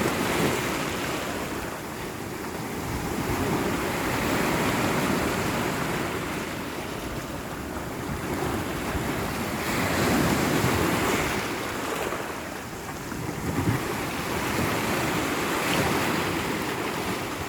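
Sea surf washing onto the shore, the waves swelling and falling away every few seconds.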